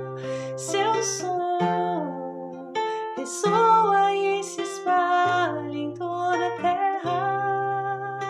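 Instrumental music: sustained chords with bass notes held a second or two each, changing through a short progression.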